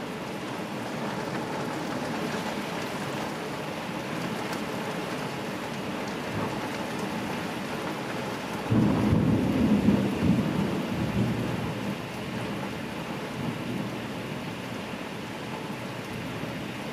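Heavy downpour heard from inside a house, a steady hiss of rain. About halfway through, a low rumble of thunder comes in suddenly and dies away over about three seconds.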